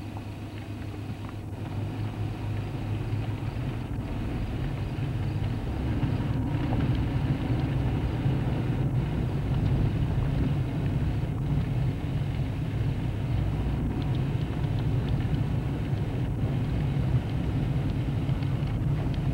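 A motor vehicle running with a steady low engine and road rumble, growing louder over the first several seconds as it picks up speed and then holding steady.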